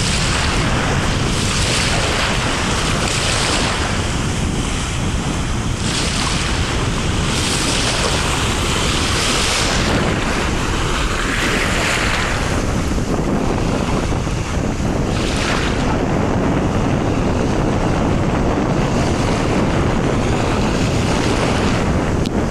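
Wind buffeting the microphone over small sea waves washing on a pebbly shore. The low rumble is steady, and the hiss of the water swells up every second or two.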